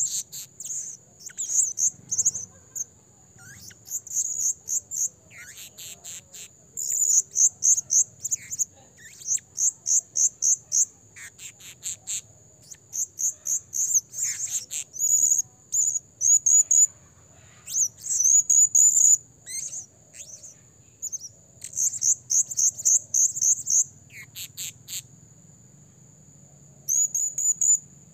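Blue-crowned hanging parrot (serindit) calling: trains of shrill, very high chirps, several a second, in bursts of a second or two with short pauses between. A thin steady high tone runs underneath.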